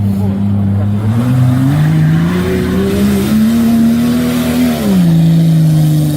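Off-road 4x4's engine revving hard, its pitch climbing in steps over the first few seconds, dropping sharply about five seconds in, then rising again.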